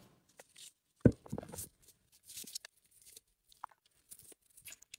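A knock about a second in, then scattered rustling and crinkling as gift packaging and items are handled.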